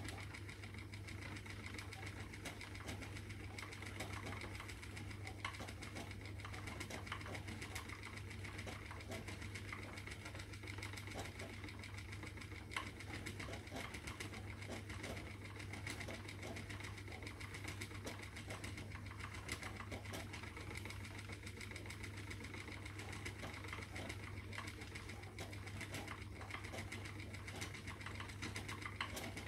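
Spinning wheel running steadily as silk and merino are plied together: an even whirr with fine, rapid clicking.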